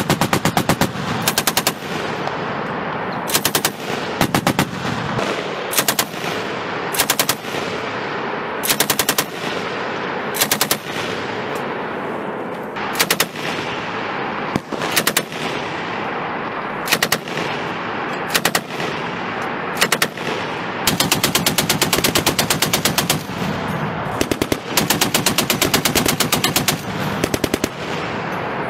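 Belt-fed machine gun firing short bursts of rapid shots every second or two, over a steady background of continuous fire. About two-thirds of the way through, the bursts give way to two long strings of fire.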